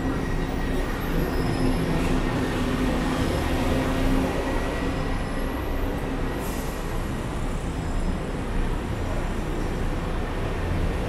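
Steady rumble of busy city traffic with a BTS Skytrain running on the elevated track, a low hum in the first few seconds.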